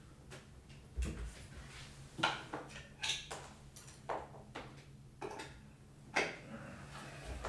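A series of irregular knocks and clatters of things being handled, six or so spread over several seconds, over a faint steady low hum.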